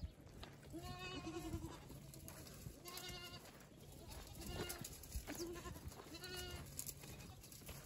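Goats in a moving herd bleating, about six short calls spread across a few seconds, some with a quavering pitch.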